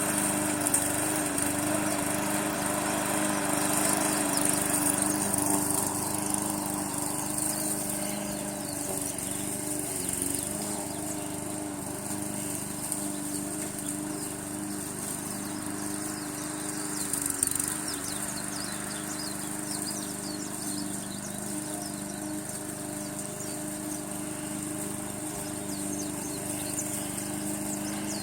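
Gasoline push-mower engine running steadily on a homemade remote-control mower, a little louder for a few seconds near the start.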